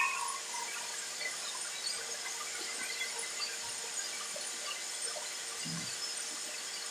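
Soap extruder machine's electric motor running with a steady whirring hiss and a faint even hum, and one soft low thump near the end.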